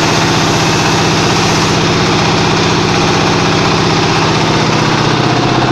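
Small concrete hollow block making machine running, a loud, steady mechanical hum with a fast, even pulsing.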